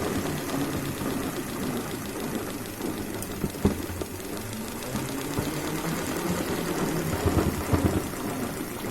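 Salad spinner turned hard by hand, its basket whirring with a steady rattle as it spins water out of washed coriander leaves. A sharper knock comes about a third of the way in, and a short cluster of knocks comes near the end.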